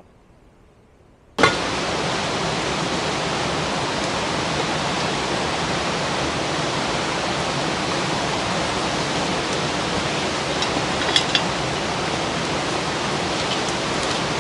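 Heavy rain falling steadily on the fabric of a tent, heard from inside as a loud even hiss that starts suddenly about a second and a half in, after near silence. A few faint clicks come about eleven seconds in.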